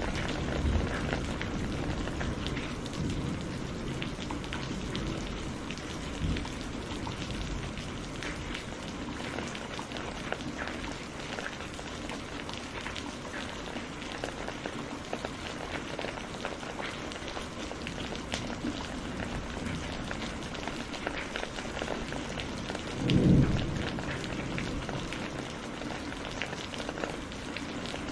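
Steady rain falling, with many individual drops clicking, and low thunder rumbling in the first few seconds. About 23 seconds in comes a short, louder low thunder boom.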